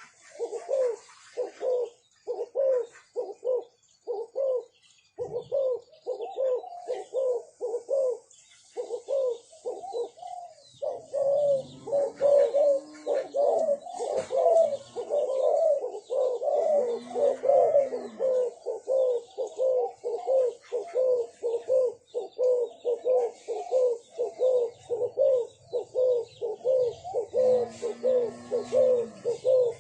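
Spotted doves cooing in runs of short repeated notes. The notes are sparse for the first ten seconds or so, then come steadily at about two a second, with a few lower, drawn-out coos mixed in.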